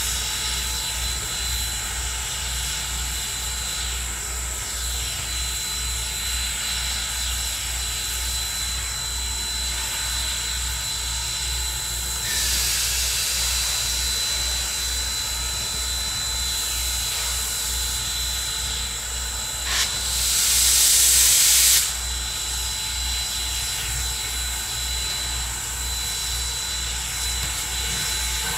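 Norfolk & Western 475, a 4-8-0 steam locomotive, standing and hissing steam steadily over a fast low pulsing of about two beats a second. The hiss grows louder partway through, with a loud blast of steam lasting about two seconds near the end.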